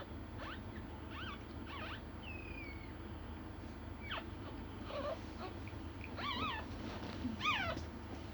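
Newborn puppies squeaking and whimpering: a string of short, thin, high-pitched squeals that bend up and down in pitch, coming more often toward the end, over a steady low hum.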